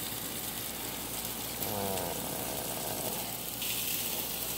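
Sauce-coated chicken thighs sizzling on a gas grill's grate, a steady hiss.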